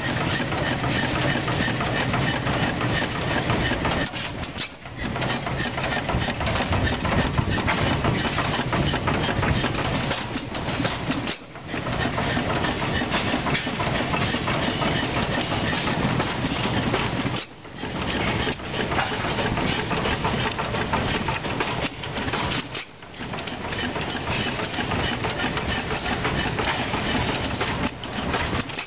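T. Eaton 7 HP antique stationary gas engine running steadily with a continuous mechanical clatter. The sound briefly drops away about every six seconds.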